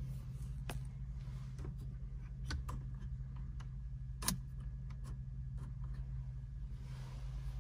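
Corvette V8 with an upgraded exhaust idling, a steady low drone heard from inside the cabin. A few sharp clicks sound over it, the loudest about four seconds in.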